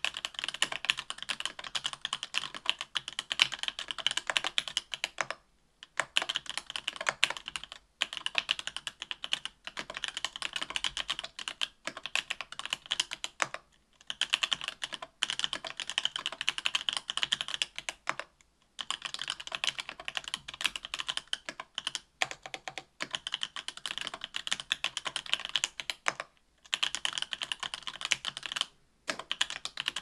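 Typing on a mechanical keyboard fitted with stock SP-Star Polaris Gray 67g linear switches, an aluminium plate and GMK keycaps: quick, continuous runs of keystrokes broken by short pauses every few seconds.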